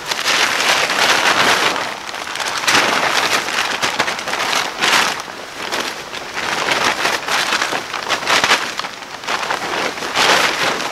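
Plastic all-purpose tarp crinkling and rustling as it is folded and bundled up by hand, in repeated loud surges.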